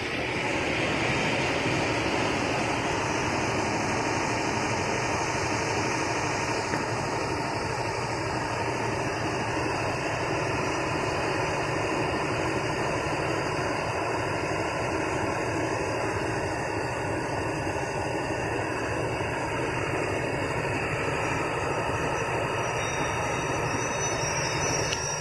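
Diesel locomotive engine running steadily, an even, continuous noise with hiss.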